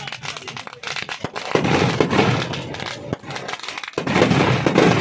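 Ground fireworks going off: fast, dense crackling and popping of firecrackers. It swells into two louder stretches, about a second and a half in and again about four seconds in.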